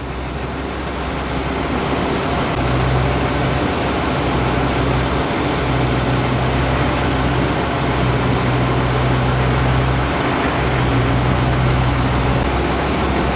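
Fendt 716 Vario tractor's diesel engine idling steadily with a low drone.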